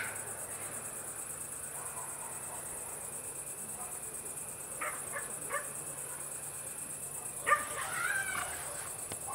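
Summer evening country ambience: a steady high insect chirr, crickets, with a village dog barking a few short barks about five seconds in and a louder run of barks near the end.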